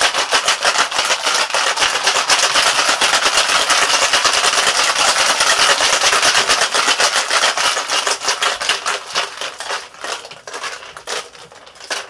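Ice rattling hard inside a metal cocktail shaker as a drink is shaken vigorously on ice: a fast, even clatter of ice against the tin. About eight seconds in the clatter grows quieter and sparser as the shaking eases.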